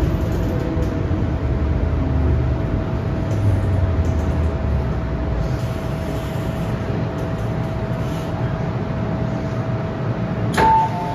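Interior sound of an MTR M-train pulling into a station: a low rumble of wheels and running gear under a steady whine, the rumble easing over the first six seconds as the train slows to a stop. About ten and a half seconds in there is a sharp click, then a two-note electronic chime.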